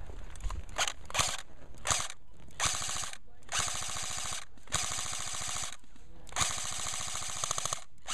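Electric airsoft machine gun, an A&K M60E4, firing on full auto in a string of bursts: a few short bursts, then longer ones of a second or more, with the rapid clatter of the gearbox and BBs leaving the barrel.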